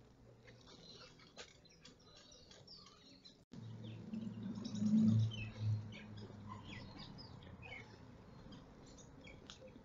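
Small birds chirping in the background, short high calls scattered throughout. A low rumble comes in about four seconds in, loudest around five seconds, then fades.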